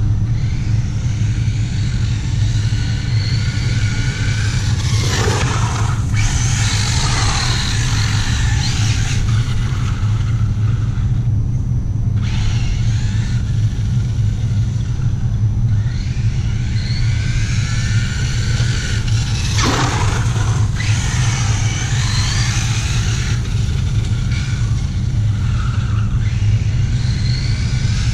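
Brushless electric motor of a 1/8-scale RC short-course truck whining, the pitch rising and falling again and again as it speeds up and slows down, over a steady low rumble. A couple of sharp scraping strokes cut through, one about five seconds in and one near twenty seconds.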